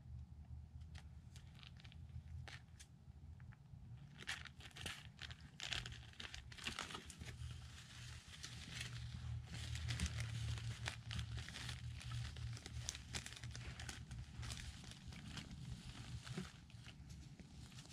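Dry moss and bedding rustling and crackling as a monitor lizard crawls through its enclosure. The rustling starts about four seconds in, over a low steady hum.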